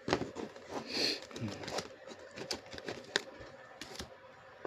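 Trading cards being handled: soft clicks and rustles as cards are slid off the stack one at a time, with a short breathy noise about a second in.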